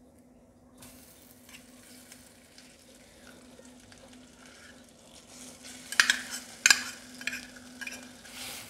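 Khoya dropped into hot ghee in a steel kadhai, sizzling faintly, while a steel spoon scrapes it off and knocks against the pan, with two sharp knocks about six and seven seconds in.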